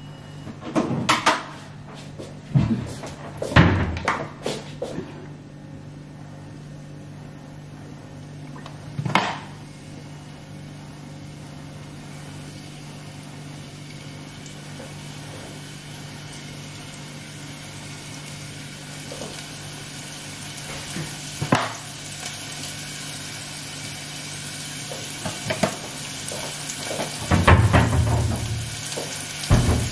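Pots, pans and cupboard doors being handled in a kitchen: a few sharp knocks and clatters near the start, single knocks at about nine and twenty-one seconds, and a louder burst of clatter near the end. A steady low hum runs underneath, and a hiss grows louder through the second half.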